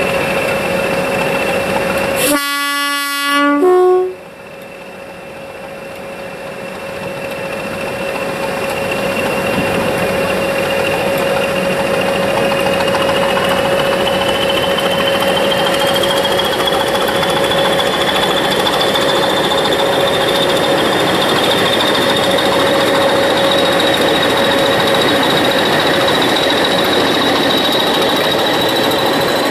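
English Electric Class 20 diesel locomotive D8098 sounds its two-tone horn about two seconds in: a low note, then a short higher one. It then pulls away with its coaches, engine running hard under a high whine that climbs steadily in pitch as it passes.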